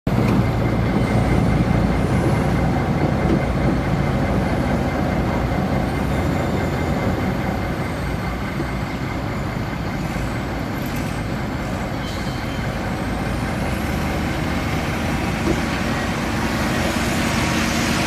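Wheel loader's diesel engine running steadily with a heavy rumble as it carries a bucket of soil and lifts it over a dump truck.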